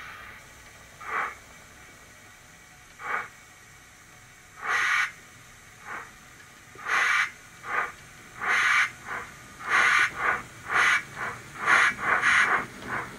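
Sound-fitted model Fairburn 2-6-4 tank locomotive starting away: the DCC sound decoder plays steam exhaust chuffs through the model's small sugarcube speaker. The beats are slow and widely spaced at first, then quicken steadily to about three a second as the engine gathers speed.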